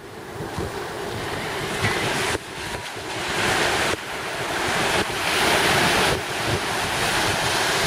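Small surf breaking and washing up the beach, swelling and easing, with wind buffeting the microphone. The sound jumps abruptly a few times.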